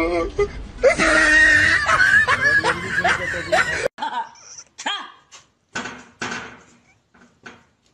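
People laughing loudly; the laughter cuts off abruptly about four seconds in, followed by short, separate bursts.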